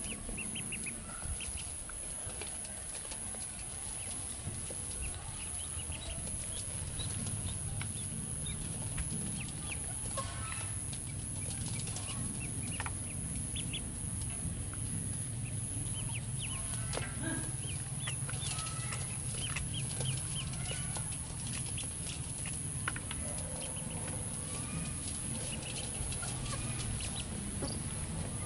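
Baby ducklings peeping: many short, high-pitched calls scattered throughout.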